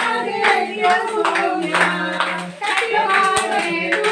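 A group of people clapping in a steady rhythm, about two claps a second, with voices singing along.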